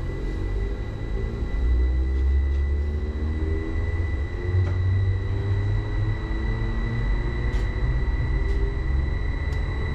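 Uijeongbu Light Rail's rubber-tyred VAL train pulling away: its traction motors whine upward in pitch in several rising tones over a low rumble, with a steady high whine alongside.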